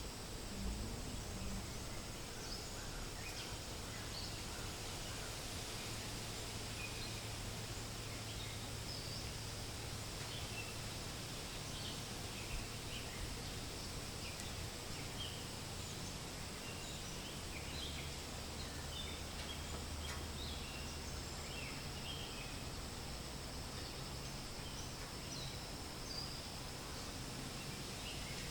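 Forest ambience: a steady rustle of wind through leaves with many short, scattered bird chirps and a faint steady high hum.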